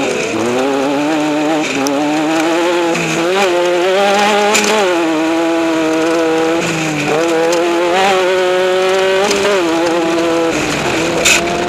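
Off-road race vehicle's engine running hard under throttle, its pitch climbing and then dropping sharply twice as it drives. A short sharp click near the end.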